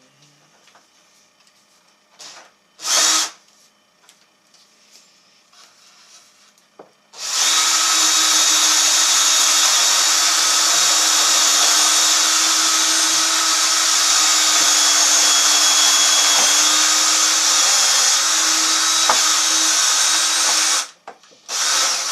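Electric drill boring a bolt hole through the wooden benchwork leg and frame: a brief burst about three seconds in, then a steady run at one even pitch for about thirteen seconds, and another short burst near the end.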